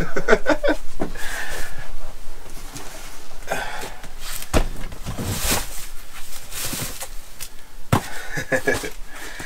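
Cardboard boxes being lifted, shuffled and set down, with rustling and a couple of sharp knocks, one about four and a half seconds in and one near the end.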